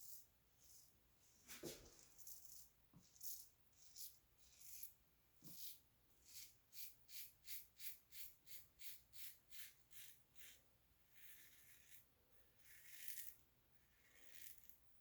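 Carbon safety razor with a Personna blade scraping stubble through lather in short strokes, faint, a quick run of about three strokes a second in the middle and a few longer scrapes near the end: the third and final pass of a wet shave.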